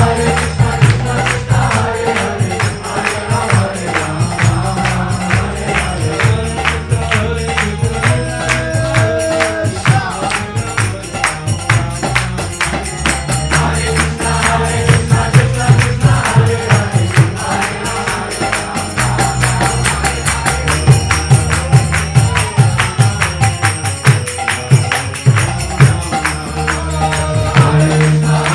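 Music with a fast, steady beat of jingling percussion under singing voices.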